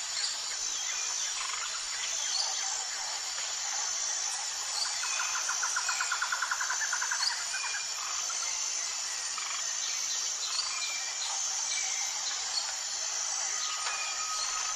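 Wild birds chirping and calling over a steady high insect buzz, with a rapid trill about five seconds in that lasts around two seconds.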